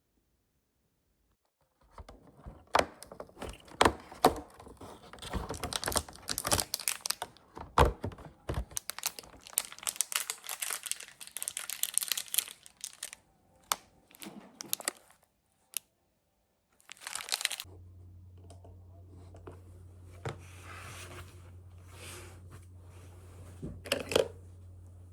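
Crinkly wrapping being handled and torn, with dense rustling and many sharp clicks and taps that stop and start. After a pause a steady low hum comes in under fainter rustles.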